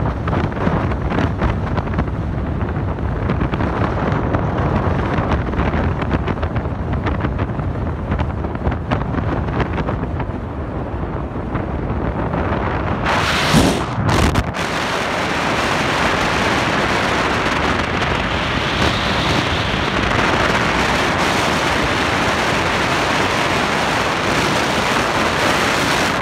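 Wind buffeting the microphone over the steady rush of water and engine of a motorboat underway at speed. About halfway through there is a brief loud blast, after which the rush turns hissier.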